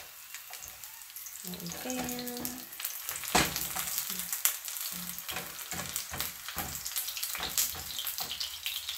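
Corn tortillas sizzling as they fry in pork lard in a skillet, a steady hiss with crackles, while metal tongs click against the pan as the tortillas are turned. The two sharpest clicks come about three and a half and four and a half seconds in.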